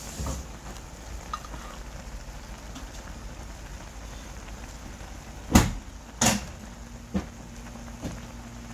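Ramyeon at a rolling boil in an aluminium pot on a portable gas burner: a steady bubbling hiss. A little past halfway, a utensil knocks sharply against the pot a few times, the first two knocks the loudest.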